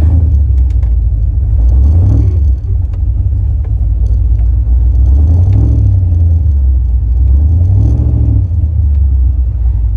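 1968 Camaro engine running through chambered exhaust on the move, a low, loud rumble whose pitch rises and falls a few times as the revs change.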